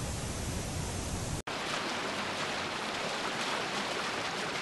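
Rough storm surf breaking and washing onto a sandy beach: a steady, even rushing hiss. It starts abruptly about a second and a half in, after a short stretch of outdoor noise with a low rumble.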